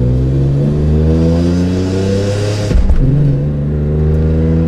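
2006 BMW M3's S54 straight-six engine accelerating under load, its pitch rising, breaking off and dropping near three seconds in as it changes gear, then rising again. It doesn't sound right and struggles to accelerate: the owner wonders whether it is missing cylinders, a fault tied to the piggybacked mass airflow sensor wiring.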